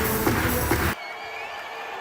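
Electronic background music that cuts off abruptly about a second in, giving way to the quieter noise of an arena crowd.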